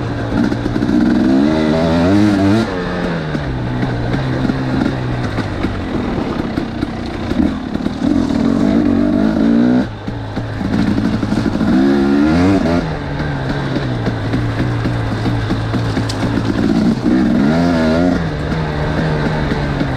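250cc two-stroke dirt bike engine running hard on a trail, its pitch rising and falling as it revs up and drops back again and again, with a brief drop in loudness about halfway through.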